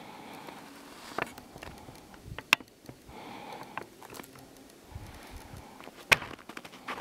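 Close handling noise on the camera: rubbing and scratching with a few sharp clicks, the loudest about two and a half and six seconds in.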